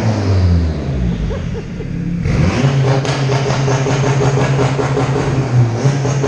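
Turbocharged Honda Civic Si K20 four-cylinder engine: the revs fall off for about two seconds, then it is revved hard again about two seconds in and held at a steady high pitch.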